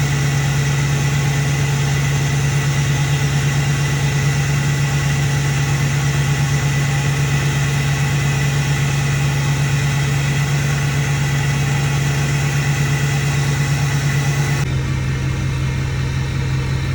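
Ford 6.4 Power Stroke V8 turbo-diesel engine idling steadily. About fifteen seconds in the sound changes abruptly to a slightly different idle.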